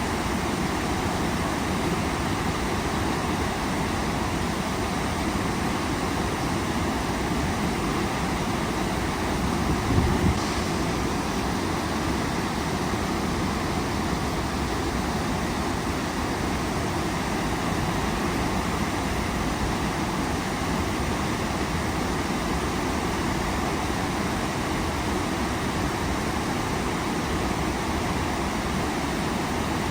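Waterfall with a steady rush of falling water. A brief low thump about a third of the way through.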